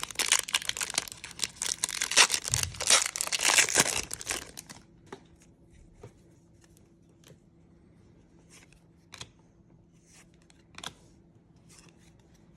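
Trading card pack wrapper being torn open and crinkled for about five seconds, then a few faint rustles and clicks as the cards are handled.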